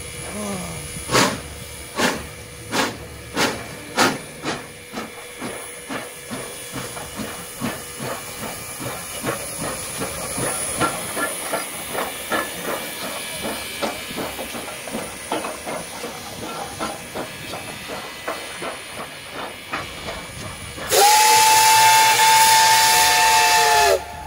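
Soviet class L steam locomotive pulling away: its exhaust chuffs start slow, about one a second, and quicken to about three a second as it gathers speed, over a steady steam hiss. Near the end its steam whistle blows one long, loud blast of about three seconds.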